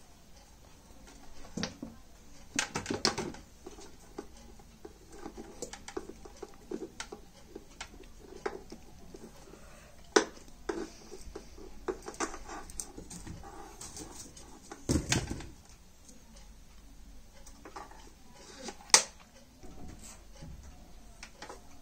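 Scattered knocks, clicks and rustles of a mixer grinder and its power cord being handled, with a few sharper clicks.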